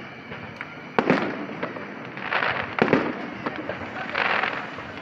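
Aerial fireworks going off: two sharp, loud booms about a second and nearly three seconds in, with smaller pops between them.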